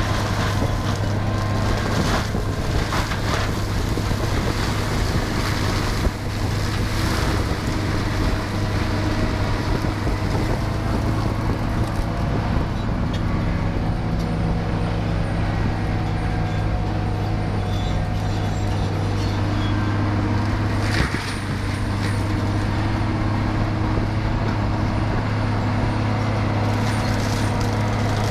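Tree-removal and root-grinding machine (PT 600) running steadily under power with a constant low engine drone, broken by brief knocks about six seconds in and again a little past twenty seconds.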